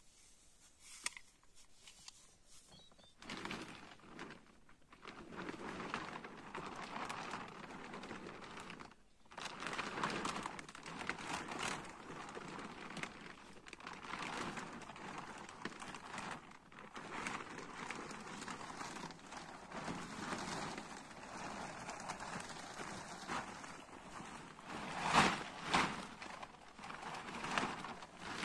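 Black plastic tarp crinkling and rustling as it is handled and pulled into place, with a few louder rustles near the end.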